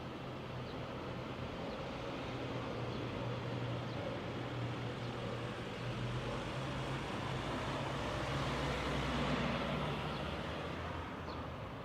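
Road traffic: steady tyre and engine noise with a low engine hum. It swells as a vehicle passes about nine seconds in, then eases off.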